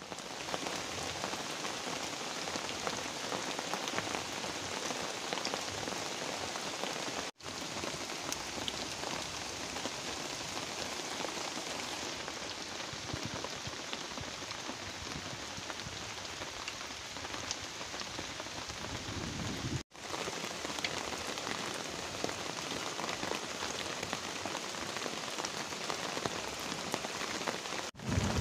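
Heavy rain falling steadily on a river and the plants along its bank, an even hiss of drops, cut off briefly three times.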